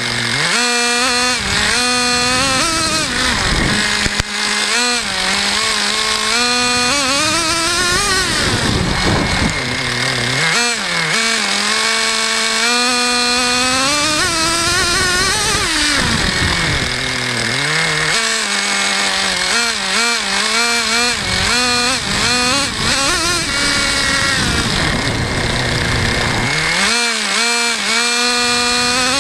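Traxxas Jato 3.3 RC truck's small nitro engine running hard, its pitch rising and falling over and over as it is throttled up and let off. There is one sharp knock about four seconds in.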